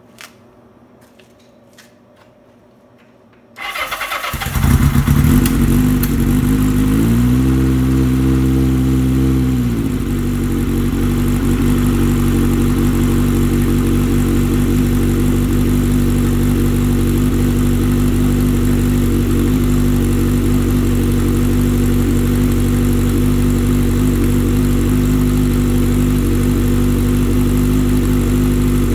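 Kawasaki KZ650's air-cooled inline-four starting from cold through a Delkevic 4-into-1 megaphone exhaust. After a few quiet seconds with a couple of small clicks, it catches about four seconds in and runs loud. The engine speed rises and holds for a couple of seconds around seven seconds in, then drops back to a steady idle.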